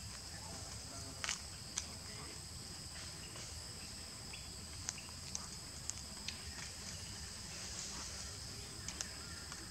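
Steady high-pitched drone of insects, two even tones held without a break, with scattered sharp clicks and ticks now and then over a low background hum.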